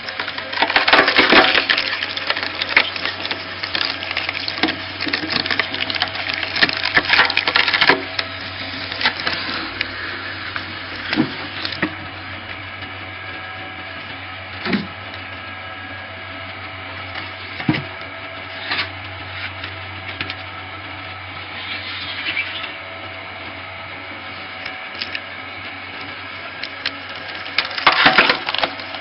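Screw-type cone log splitter: its drive runs with a steady hum while the spinning threaded cone bores into a round of firewood, which crackles and splinters loudly for the first several seconds and again near the end, with a few single sharp cracks in between as the wood splits apart.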